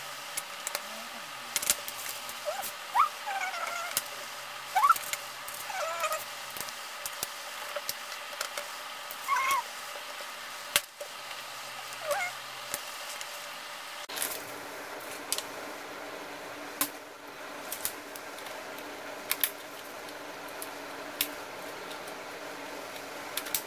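LEGO plastic bricks being handled and pressed together: scattered sharp clicks and taps, with a few short chirping squeaks in the first half.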